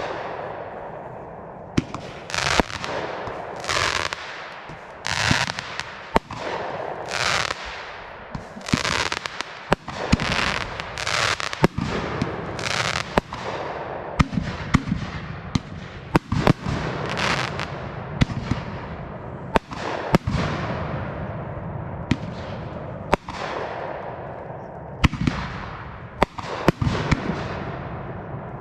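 Aerial fireworks display: a continuous run of sharp bangs from shells bursting overhead, roughly one or two a second, many trailing a hiss that fades away after each burst.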